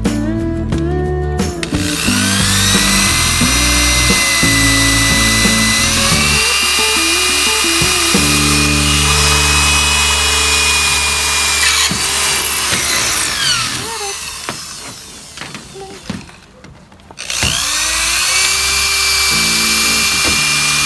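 Handheld electric power tool spinning up with a rising whine and running at steady high speed on the car body's sheet metal. It winds down about 14 seconds in, stops briefly, then spins up again. Background music plays underneath.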